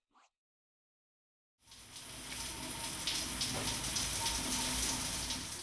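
Shower head spraying water, starting about a second and a half in, building quickly and then running steadily. A faint, brief brush swish comes just at the start.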